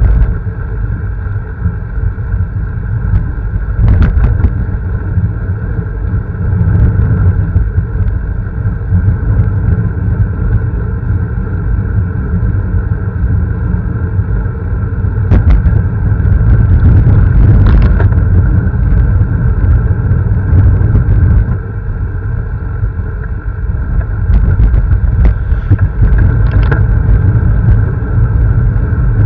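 Steady wind rush and rumble on the microphone of a camera moving along a road, with a few short clicks or rattles at about four seconds, around fifteen to eighteen seconds, and between about twenty-four and twenty-seven seconds.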